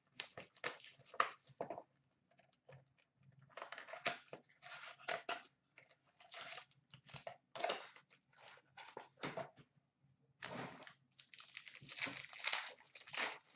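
Hockey card box packaging and a foil card pack being handled and opened by hand: irregular short bursts of crinkling, rustling and tearing with brief pauses between.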